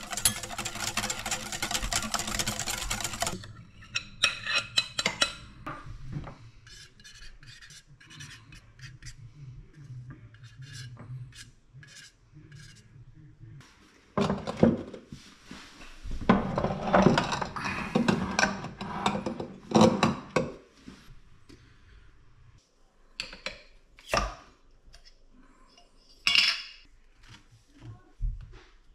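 A whisk beating homemade mayonnaise in a glass bowl for the first three seconds, then scattered kitchen clicks and knocks. From about 14 to 21 seconds, filled glass canning jars knock and rub as they are set on a cabinet shelf, and a spoon taps and scrapes near the end.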